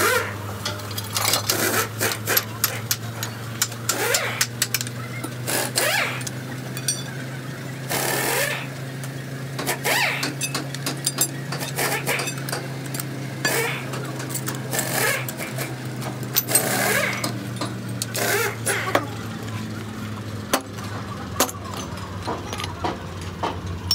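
Hand tools clinking, knocking and scraping on the steel pinion assembly of a truck differential held in a vise, with a wrench on a long pipe extension. A steady low machine hum runs underneath.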